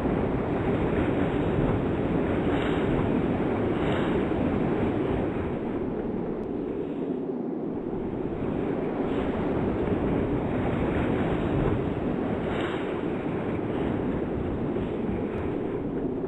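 Heavy Lake Michigan storm surf crashing against a pier: a steady rumbling wash of breaking waves with wind on the microphone, swelling briefly louder a few times as bigger waves hit.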